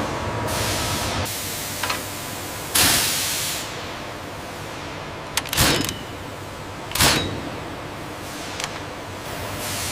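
Factory machinery noise: a steady low hum with short hissing bursts about half a second in and near three seconds, and several sharp knocks later on.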